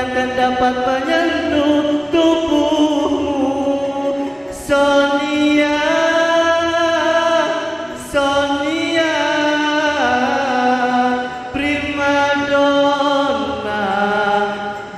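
A man singing through a microphone and PA, holding long notes that slide and waver between pitches. The phrases last a few seconds each, with short breaks between them.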